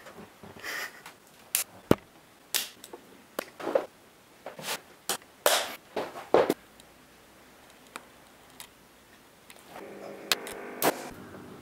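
Irregular sharp taps and clicks, a dozen or so spread out, from a pen being handled, tossed and caught. About ten seconds in, a faint steady hum joins them.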